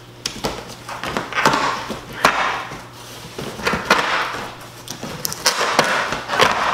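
Large cardboard shipping box being opened by hand: packing tape peeled and torn off, with several sharp tearing rasps, and the cardboard flaps pulled back with scrapes and knocks.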